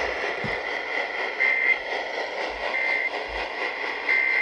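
Emergency Alert System end-of-message data signal: three short bursts of two-tone warbling digital code, about 1.3 s apart, over a steady noise floor.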